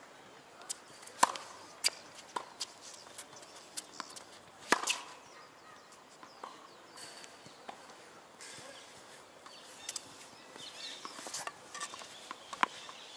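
Tennis balls being struck by rackets and bouncing on a hard court during a point: sharp pops, the loudest about a second in and just before five seconds in, with fainter hits and bounces between and after.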